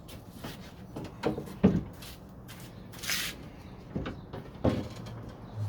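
Metal door hardware knocking and clunking inside a car door shell as a part is worked loose, with a short scrape about three seconds in.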